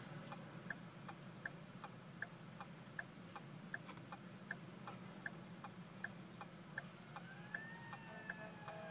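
Car's turn-signal relay clicking in a steady tick-tock, about two clicks a second alternating louder and softer, over a low steady hum inside the car. Near the end a faint tone rises and then holds.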